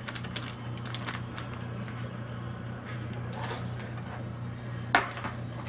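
Plastic zip-top bag crinkling and crackling in short bursts as hands pull it open, over a steady low hum. A single sharp tap comes about five seconds in.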